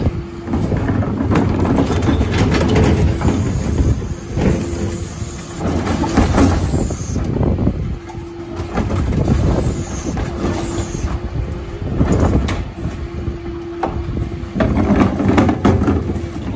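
Terberg OmniDel hydraulic bin lift on a Dennis Elite 6 refuse truck raising a wheelie bin, tipping mixed recycling into the hopper and lowering it again, with the truck's engine running. A steady hum comes and goes through the cycle, with clatter and knocks from the bin and its contents.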